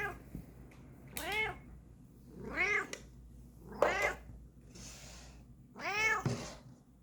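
Bengal cat meowing over and over: four drawn-out meows about a second and a half apart, each rising then falling in pitch.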